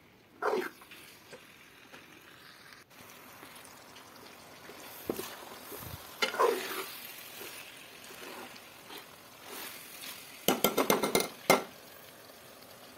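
A steel spoon stirring and scraping potatoes, peas and radish pods frying in oil in a metal pot, over a low steady sizzle. Near the end the spoon clinks rapidly against the pot several times.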